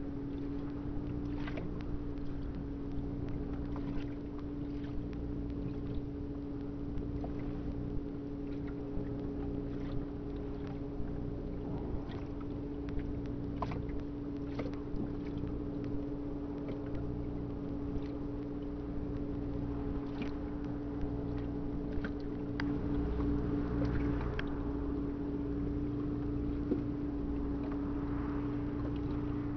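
A small boat's engine running steadily, a constant even hum, with a few light knocks scattered through it.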